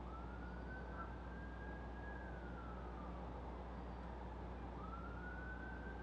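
Emergency-vehicle siren wailing faintly: the pitch rises, holds, falls away about two to three seconds in, then rises again near the end, over a steady low hum.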